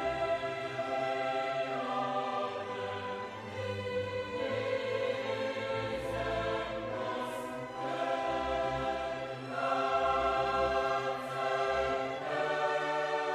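Background music of slow, sustained chords that shift every second or two.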